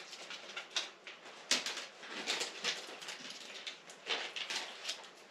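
Irregular rustling, crinkling and clicking of packaging and plastic accessory parts being handled and opened, with a sharp click about a second and a half in.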